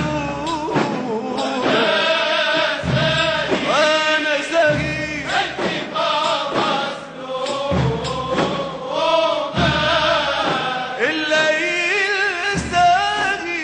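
Background music with a chanted, sung melody over a deep recurring beat.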